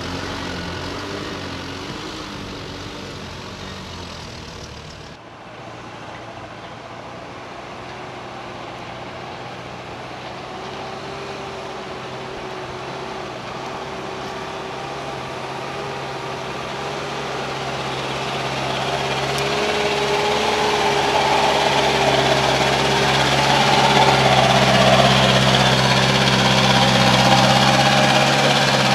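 Diesel engine of a loaded Isuzu ELF dump truck working hard up a steep dirt incline. After an abrupt cut about five seconds in, the engine grows steadily louder as the truck approaches and climbs close by.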